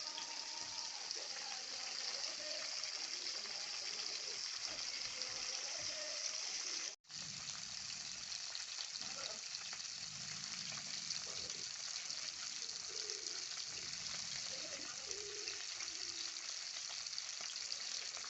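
Pohala river fish frying in hot oil, a steady dense sizzle, with a sudden break about seven seconds in.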